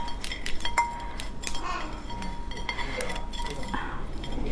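Crab shell cracking and clicking as fingers pry the top shell off a crab, a quick irregular run of small cracks.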